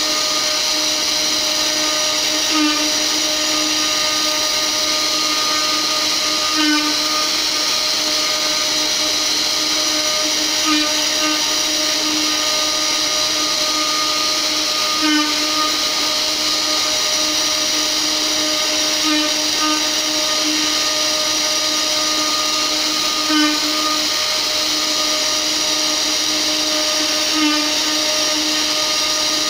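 Spindle of a mini 500 W CNC router running at a steady high pitch while its 4 mm bit carves a relief into a wooden panel. The sound swells briefly about every four seconds, roughly seven times.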